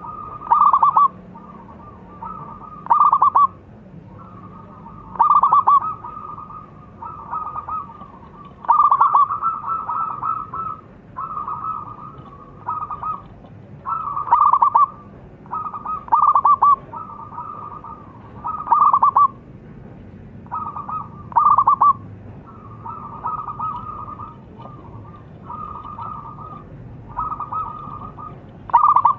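Zebra dove (perkutut) singing its cooing song over and over. Loud coos come every two to three seconds, with softer coos between them.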